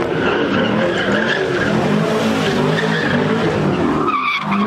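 Sixth-generation Chevrolet Camaro doing donuts: its engine is held high, the revs rising and falling, while the rear tyres skid and screech on the pavement. The revs ease briefly near the end.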